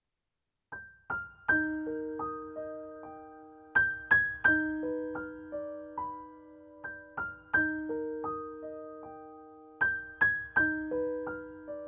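Soft background piano music: a slow, repeating melody of single notes, each ringing and fading, starting about a second in.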